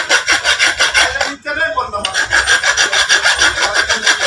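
A metal tube being filed: it is scraped back and forth quickly against a flat file, about six strokes a second. There is a brief pause about a second and a half in.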